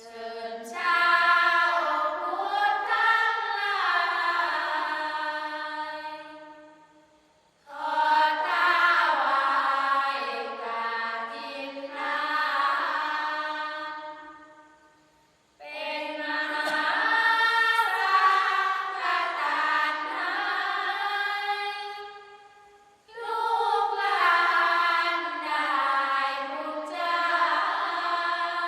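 Thai sarabhanya: a group of voices chanting a Buddhist verse together in a melodic style, unaccompanied, in four long phrases with short breaths between them.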